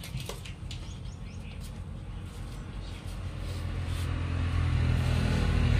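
A motor vehicle's engine running with a low steady hum that grows louder from about three seconds in, as if drawing closer. A few light clicks and brief bird chirps come in the first two seconds.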